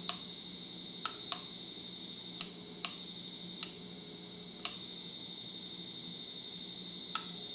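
Casablanca Venus ceiling fan with a faulty control board giving a steady high-pitched whine over a low hum, with irregular sharp clicks every half second to two seconds. These are the weird, obnoxious noises of a board the owner takes to be shot.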